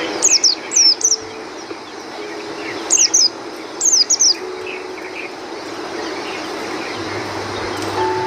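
White-eyes chirping: three short clusters of high, quickly falling chirps, one right at the start, one about three seconds in and one about four seconds in.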